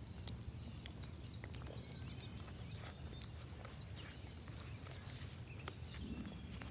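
Faint footsteps of someone walking over the ground, with scattered short bird chirps and a low outdoor rumble.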